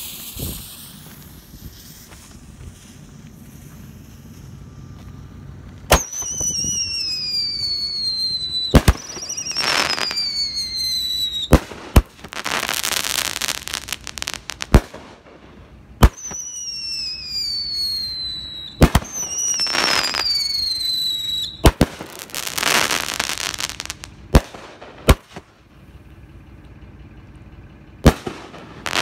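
Patriotic Dominance 10-shot 500g firework cake firing. Its fuse sparks for about six seconds, then shots go up with sharp thumps, several trailing a whistle that falls in pitch, and break with loud bangs followed by long stretches of crackling.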